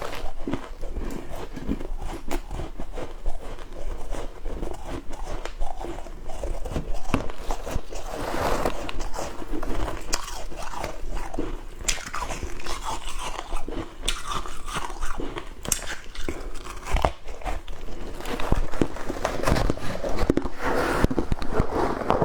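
Close-up biting and chewing of flaky freezer frost: soft, dense crunching and crackling bite after bite, without pause.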